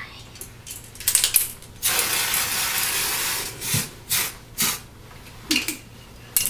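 Aerosol hair spray can spraying: a short spurt about a second in, one long spray of nearly two seconds, then a few short puffs.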